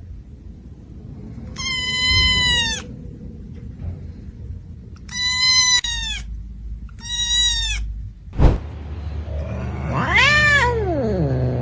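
Cat meowing: three short, high-pitched meows, then a sharp click, then a longer call that rises and then slides far down in pitch.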